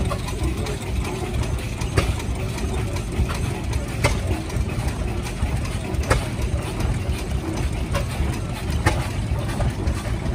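Vintage stationary engines running with a low steady chugging, and a sharp knock or bang about every two seconds.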